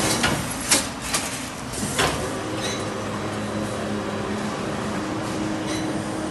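Plastic-film wrapping machine running with a steady hum, with several sharp clacks in the first two seconds as it handles a bottle of body wash.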